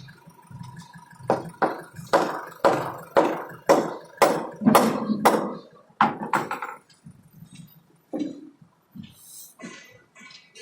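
A rapid run of about a dozen sharp knocks, roughly two a second, lasting about five seconds, then a few fainter scattered sounds.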